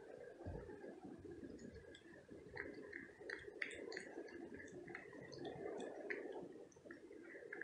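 A cat eating chunks of wet cat food from a plastic plate: faint, irregular wet clicks and smacks of chewing and licking, starting a couple of seconds in.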